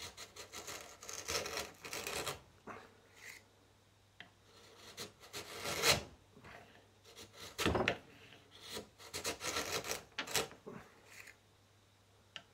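Hand-pushed wood chisel paring thin shavings from a wooden block, in several strokes. Each stroke is a dry scraping rasp, and short pauses separate them.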